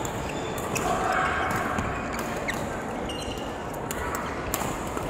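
Badminton rally: rackets striking the shuttlecock in scattered sharp hits, with short squeaks of court shoes on the floor and players' voices in the background.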